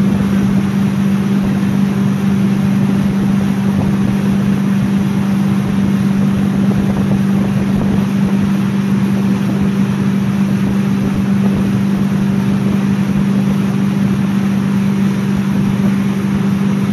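Tow boat's engine running at a steady pitch at towing speed, over the rush of water churned up in its wake.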